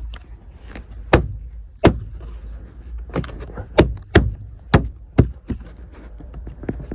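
Sharp knocks and clicks of parts being handled and fitted back into place in a car, about eight irregular strikes over a few seconds.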